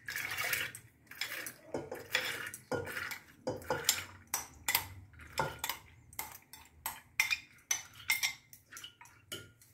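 Soaked chana dal being tipped and scraped from a glass bowl into a stainless steel pressure cooker: a run of irregular clinks and rattling scrapes as the lentils drop in and the bowl knocks against the cooker.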